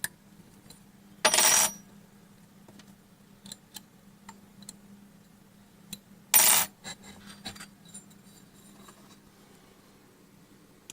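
Metal parts being handled: two short metallic clatters, about a second in and again about six seconds in, with small clicks and taps between them over a faint steady hum.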